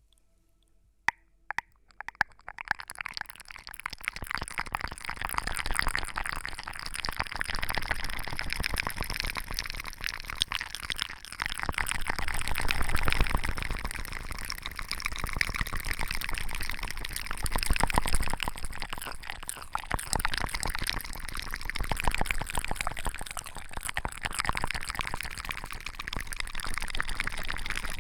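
Close-miked wet, crackly liquid sounds, starting after a couple of clicks and then running continuously, swelling and easing every few seconds.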